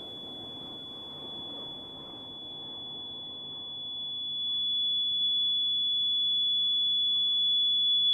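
A steady high-pitched electronic tone holds throughout over a low, noisy rumble that fades away. About four seconds in, lower steady tones swell in beneath it and the sound grows louder.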